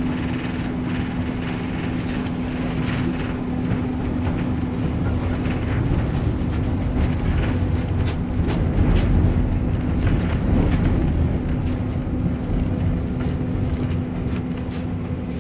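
T8K-503 tram running along the line: a steady hum over the low rumble of wheels on rail, with scattered clicks. It swells louder about halfway through, then eases back.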